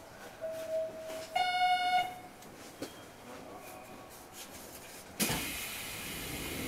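A two-note electronic chime at a train station, a lower tone for about a second and then a higher tone for under a second, heard from inside a train stopped at the platform. About five seconds in, a steady hiss starts suddenly and keeps on.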